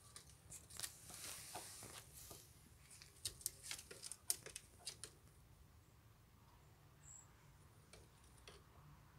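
Near silence, with faint scratchy clicks and rustles that stop about five seconds in.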